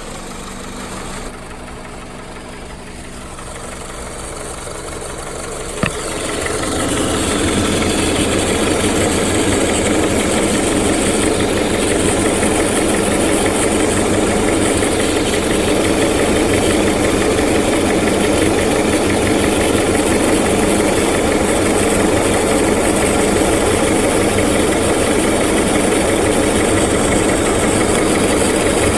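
Honda Civic LX's 1.7-litre four-cylinder engine running steadily. It grows louder about six seconds in, just after a single sharp click, then holds level. The noise is one the owner blames on a worn-out timing belt tensioner.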